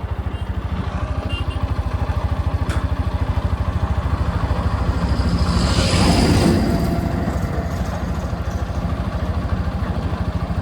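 Motorcycle engine running with an even, rapid firing beat, swelling louder about six seconds in. It has just been repaired in a workshop for an abnormal engine noise, and the owner says it now runs normally with no noise.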